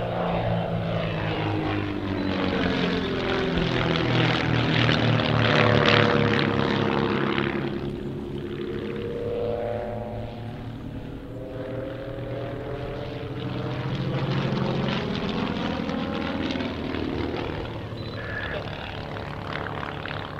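Propellers and piston engines of two Van's RV-8 aerobatic aircraft droning as they fly a formation pass. The sound is loudest about six seconds in, fades, then swells again around fourteen seconds.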